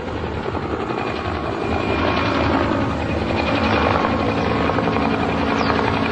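A motor running steadily with a fast, even flutter, growing slightly louder.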